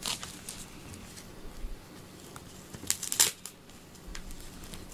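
Rustling, scratchy brushing noises from a rubber grooming glove being worked over a cat's fur, with two louder strokes close together about three seconds in.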